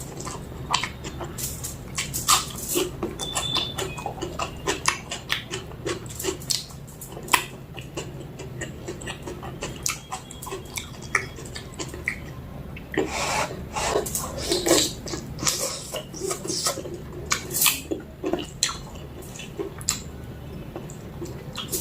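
Close-up mouth sounds of a person eating mutton curry with rice: wet chewing and lip smacks as irregular short clicks, with a denser run of them about two-thirds of the way through.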